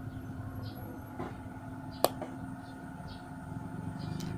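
A steady low hum under faint, scattered bird chirps, with one sharp click about two seconds in and a softer one near the end.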